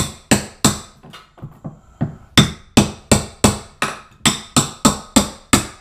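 Hammer striking a metal scraper to drive it under an epoxy-glued cork tile and chip it off the plywood subfloor: quick, even blows about three a second, with a short pause about a second in.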